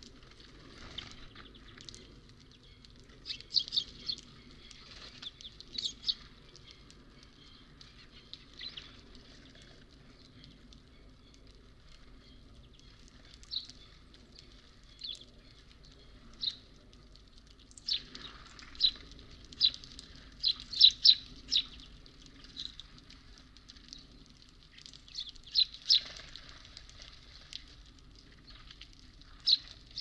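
Small songbirds at a seed feeder giving short, sharp, high chirps, singly and in quick runs, with a busier run of calls a little past the middle and another near the end. A faint steady low hum lies underneath.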